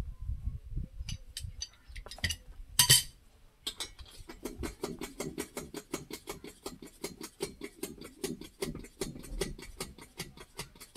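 Spanner working the castle nut off a tractor's front axle spindle: scattered metal clinks, one louder clink about three seconds in, then a run of quick, even clicks, about eight a second, for some six seconds.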